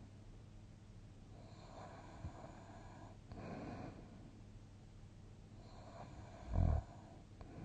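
A sleeping person breathing slowly and audibly through the nose and mouth, with a short, loud snore near the end.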